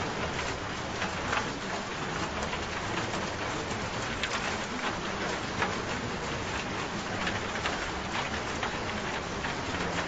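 Steady rain falling, with many small drops pattering on a surface.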